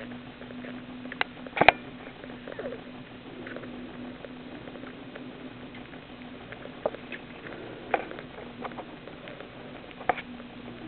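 Newborn orphaned kitten suckling on a feeding-bottle nipple: faint, scattered sucking and smacking clicks, with a sharper click about a second and a half in, over a steady low hum.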